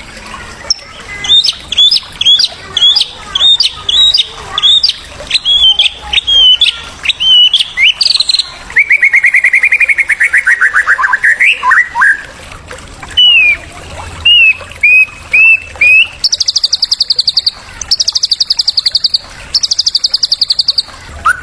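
Songbird song played as a masteran for training white-rumped shamas: a run of sharp hooked whistled notes about two a second, then a fast trill that falls in pitch, a few more short notes, and rapid buzzing trills near the end.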